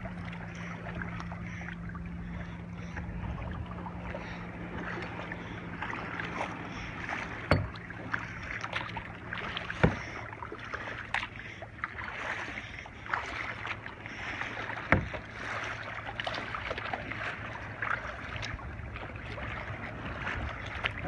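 Water lapping and splashing against a plastic kayak hull on choppy water, broken by a few sharp knocks on the hull. A faint steady low hum runs under it and stops about halfway through.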